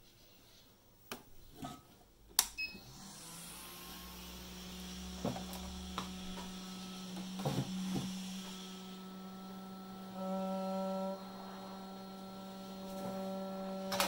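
Hot air rework station blowing at about 75% airflow, a steady hum with a hiss of air and a whine that grows stronger partway through. It is heating the underside of a laptop motherboard to desolder an M.2 SSD connector. A few clicks and knocks come before the blower starts, about two seconds in.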